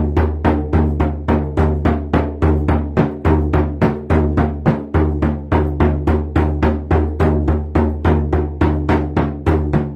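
A hand drum beaten in a steady, even rhythm, about two to three strokes a second, each stroke ringing on with a deep tone.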